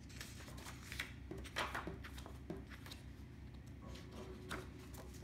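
Paper planner pages being handled and flipped: a few faint rustles and light taps scattered through, over a low steady hum.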